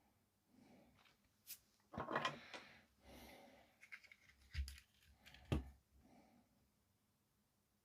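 Small tools and parts handled on a workbench during soldering work: a scatter of light clicks, knocks and brief rustles, the loudest a cluster about two seconds in and two sharp knocks later on.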